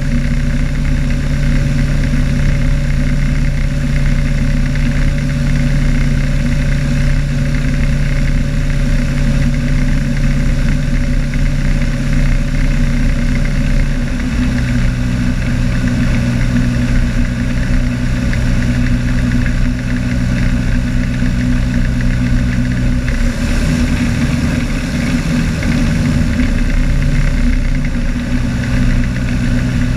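RANS S7 Courier floatplane's engine running at low power as it taxis on the water after landing, a steady engine note with the slow-turning propeller. The note drops slightly about halfway and wavers for a few seconds in the last third before settling.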